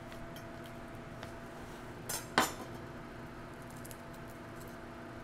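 A kitchen knife clacking sharply once against the counter about two and a half seconds in, just after a lighter double tap, with small scattered clicks of a garlic clove being handled and peeled, over a steady faint hum.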